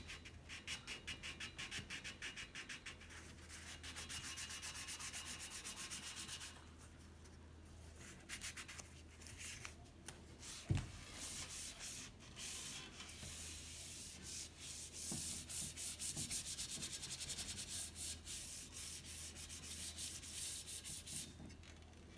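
Sandpaper rubbed back and forth by hand over the painted steel bicycle frame in quick, even strokes, about four a second. The rubbing pauses about seven seconds in, and there is a single knock near eleven seconds before the strokes resume.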